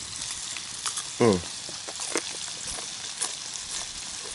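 Bacon sizzling in a skillet over a campfire, a steady hiss with small crackles. About a second in, a short vocal sound from the man eating the bacon falls steeply in pitch.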